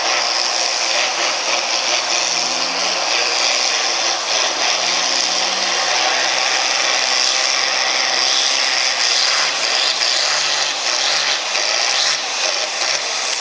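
Diesel engine of an altered farm pulling tractor running loud and steady with a strong high-pitched whine over it. Near the end a high whine starts to fall in pitch.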